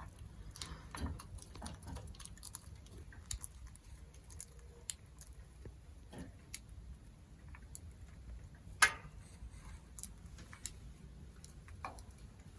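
Small pet birds pecking and moving about, making irregular light taps and clicks, with one sharper knock a little before nine seconds in.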